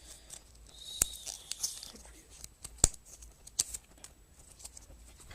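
Paper and card packaging inserts of an iPod Nano box being handled: soft rustling and sliding with a few sharp taps, about one, three and three and a half seconds in.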